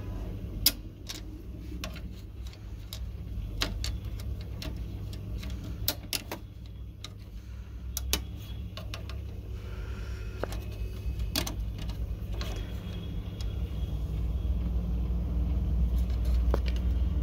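Scattered small clicks and taps of plastic parts and a hand tool as the displaced toner-cartridge sensor lever of an HP LaserJet M1005 printer is worked back into its seat. Under them runs a steady low background rumble that grows louder near the end.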